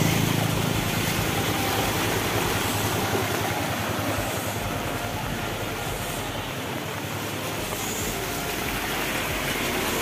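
Steady wash and splash of floodwater churned up by motorbikes wading along a flooded road, with a motorbike engine running underneath. The low engine hum is strongest at the start and sinks into the water noise.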